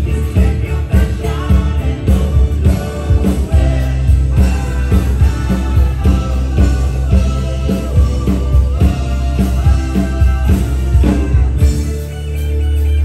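Live rock band playing: drums, guitars and keyboards with a voice singing over them. Near the end the drums drop out and a held low note swells up.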